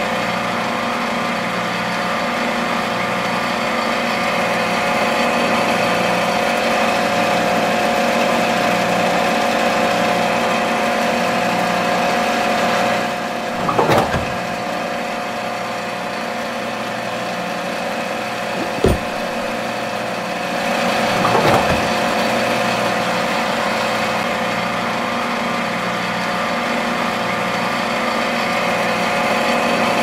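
A small motor or engine running at a steady hum, with three short knocks in the middle stretch.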